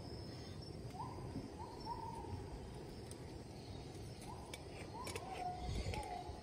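A bird calling in short whistled, hoot-like notes, two runs of three or four, some rising at the start, over a steady low outdoor rumble. A few faint clicks come near the end.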